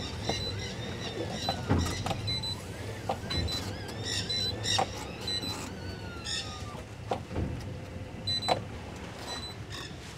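Boat engines idling low and steady, with scattered short high squeaks, chirps and clicks over the top.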